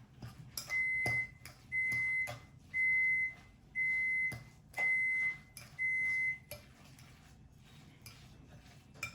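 An electronic kitchen appliance beeping six times, each beep a steady high tone about half a second long, roughly one a second, with light clicks and knocks in between.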